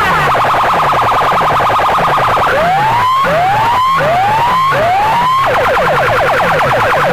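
Electronic siren effect blasted through a large DJ loudspeaker sound system: a fast warbling yelp, broken by four rising wails in the middle, then back to the fast yelp, over a low pulsing bass.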